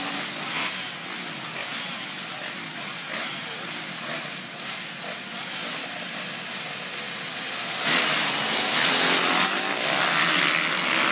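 A full gate of motocross dirt bikes revving at the start line, then a sharp jump in loudness about eight seconds in as the gate drops and the whole pack launches at full throttle.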